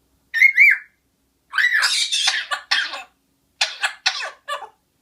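Coughing in two bouts of several quick coughs, the first starting about one and a half seconds in and the second about three and a half seconds in. A short high-pitched squeaky call comes near the start.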